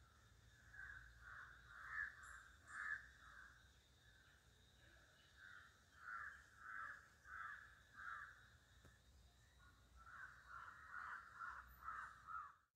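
Crows cawing faintly, in three runs of repeated harsh caws at about two a second.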